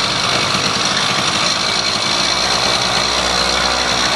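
Skyhawk gas engine on a motorized bicycle running steadily just after being pedal-started, warming up.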